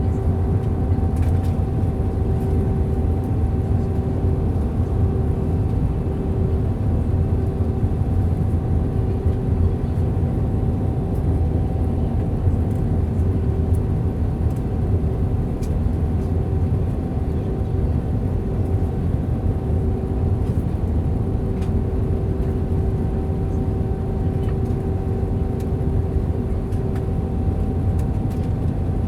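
Steady cabin noise inside an Airbus A320 on approach: a low rumble from the IAE V2527E-A5 engines and the airflow. Over it runs a steady mid-pitched hum, and a second tone cuts in and out.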